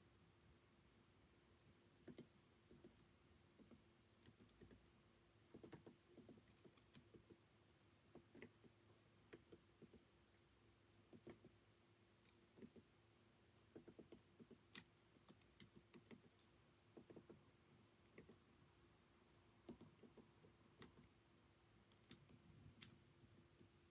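Faint typing on a computer keyboard: irregular keystroke clicks in short clusters, over a faint steady hum.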